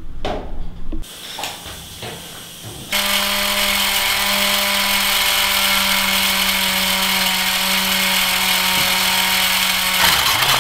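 A battery-powered toy jet airliner running: its small electric motor whirs steadily with a constant hum as the toy moves about. It is switched on abruptly about three seconds in, after a few handling clicks and knocks.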